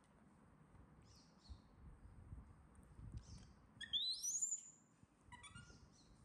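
A baby macaque screams: one high call about four seconds in that rises steeply in pitch and is the loudest sound here, followed about a second later by a shorter, lower call.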